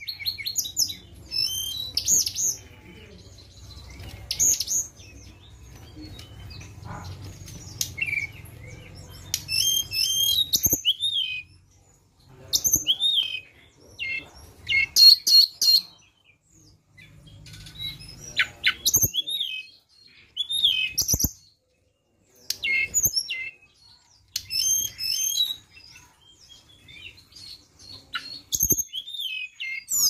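Hill blue flycatcher singing: short clear whistled phrases with quick up-and-down slides, repeated with pauses between them. A few sharp clicks are heard, and a faint low hum runs under the first third.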